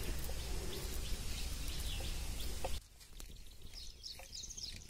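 Dry coconut frond and twigs catching fire, a low rustling and crackling with scattered faint clicks, over birds chirping. The crackling noise drops away suddenly about three seconds in, leaving only the short, high bird chirps.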